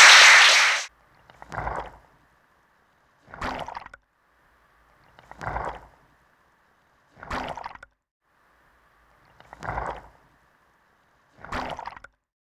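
Audience applause at the end of a talk, cutting off about a second in. It is followed by a soft, water-like swish repeated about every two seconds, six times, over a faint steady hiss.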